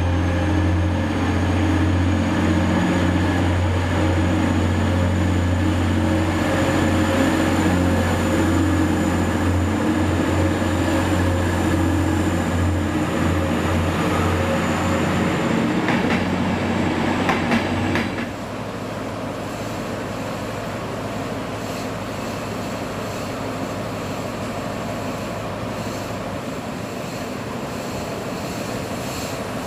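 HST (InterCity 125) Class 43 power car's diesel engine running loudly under power as the train moves off, a steady low drone with a faint high whine that rises slowly, and a run of wheel clicks over rail joints near the middle. About 18 seconds in the engine sound drops off suddenly, leaving a quieter steady rumble of coaches rolling past.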